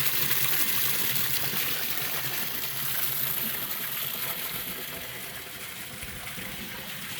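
Water running and splashing steadily into a concrete stock-water trough, fed through its float valve; a little fainter in the second half.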